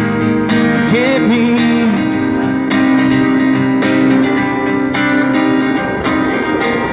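Acoustic guitar strummed about once a second, its chords ringing on between strums, with a short sung phrase that wavers in pitch about a second in.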